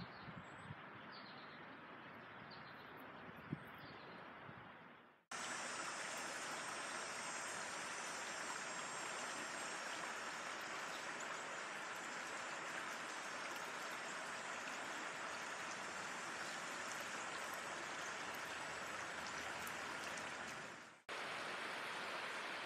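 Shallow river flowing over rocks, a steady rush of water that gets louder after a brief dropout about five seconds in and drops out once more near the end. Faint bird chirps repeat at first.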